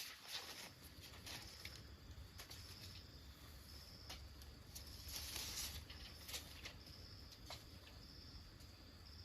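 Faint outdoor ambience: an insect's short, high chirp repeating about once a second, with scattered light clicks and rustles over a low rumble.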